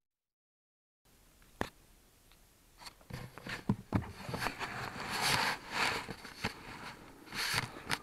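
Camera handling noise: a sharp click, then irregular clicks, knocks and rustling as the camera is picked up and moved about, with fabric brushing against its microphone.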